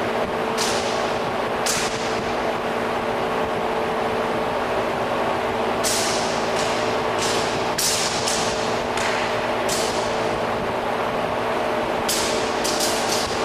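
Spear and broadsword striking each other in a choreographed two-man weapons set: sharp clacks that ring briefly. Two single hits come first, then a run of about eight over four seconds, then a fast cluster near the end, over a steady hum and hiss.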